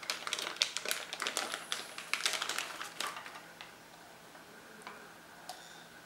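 Clear plastic bag crinkling and crackling as a small wah pedal is pulled out of it, dense for about three seconds. It then goes quieter, with a few faint clicks as the pedal is handled.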